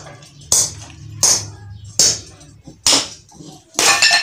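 A hammer striking a terracotta piggy bank: four sharp knocks about three quarters of a second apart, then a longer crash near the end as the clay pot breaks open.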